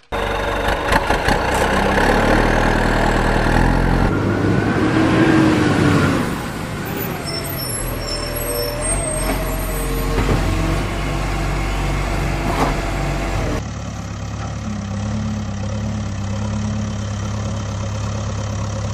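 Heavy truck engine sound effects running steadily, laid over toy vehicles that make no engine noise of their own; the engine note changes abruptly several times as one recorded clip gives way to another, with a short rising-then-falling whine about five seconds in.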